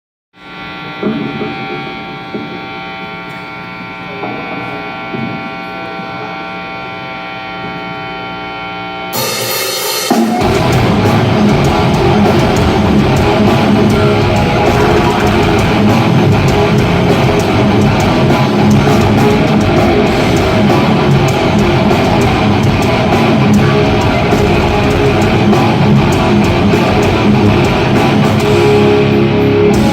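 Distorted electric guitar ringing out sustained chords, struck again a few times. About nine seconds in a cymbal comes in, and a second later the drum kit and guitar crash in together, playing loud heavy rock.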